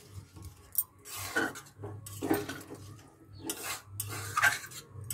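Metal spatula stirring a watery vegetable curry in a metal kadai, scraping against the pan in about five short strokes.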